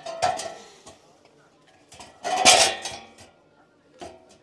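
Metal parts clanking and clinking as they are handled, a few sharp knocks that ring briefly; the loudest clank comes a little past halfway through.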